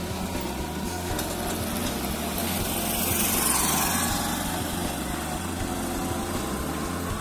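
Small petrol engine of a motor scooter running as it rides past, swelling to its loudest a little over halfway through.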